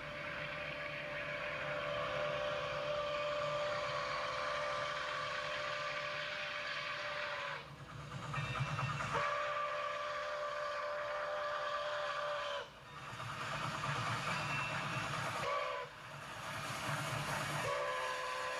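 Milwaukee Road 261, a 4-8-4 steam locomotive, sounding its steam whistle in the grade-crossing pattern: two long blasts, a short one, then a long one that runs on at the end. Under the whistle is the low rumble of the train approaching and passing.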